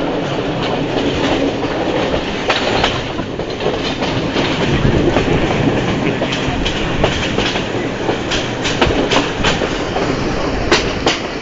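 Passenger train running along the track, heard from on board: a steady rumble of wheels on rails with irregular sharp clicks and clatter, more frequent in the second half.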